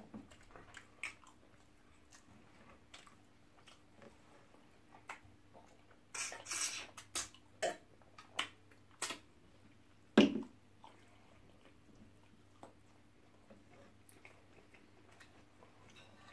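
Close-up eating sounds: scattered wet chewing and mouth clicks, with a short rush of noise about six seconds in. A single sharp knock about ten seconds in is the loudest sound.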